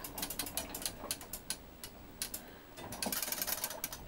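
Ratchet pawls on the crankshaft of a homemade float-driven water displacement gravity engine clicking as the shaft rocks up and down. The clicks come in irregular runs, with a denser burst of quick clicks about three seconds in.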